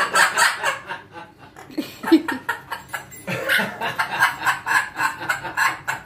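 Amazon parrot making a rapid run of chuckling, laugh-like calls, mimicking human laughter.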